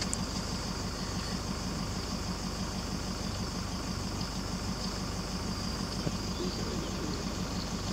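Vehicle engine idling steadily, a low even hum, with a steady high-pitched whine above it.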